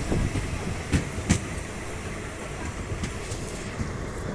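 Train running, heard from on board a coach: a steady low rumble of wheels on rails, with a few sharp clacks in the first second and a half.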